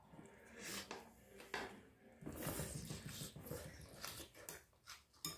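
Close-up eating sounds: slurping strands of seasoned greens in off chopsticks, then wet chewing and lip smacks in short irregular bursts. A sharp click about five seconds in.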